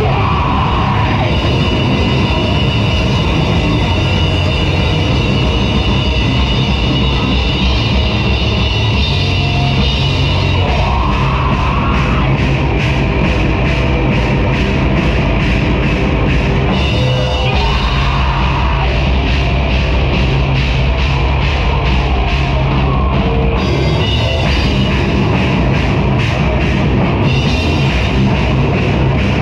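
Live heavy metal band playing loud: electric guitars, bass and a drum kit with fast, even cymbal strikes.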